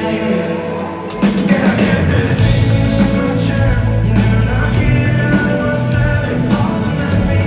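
Live pop-rock band playing a song, with the full band coming in louder about a second in.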